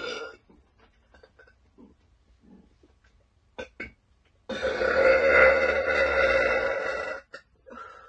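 A woman burping: one burp trailing off at the start, two short ones a little over three and a half seconds in, then one long, loud burp of nearly three seconds, and another beginning just before the end.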